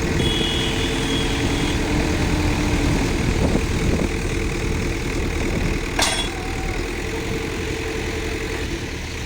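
Heavy diesel engine of a backhoe loader or truck running steadily, with one sharp metallic clank about six seconds in.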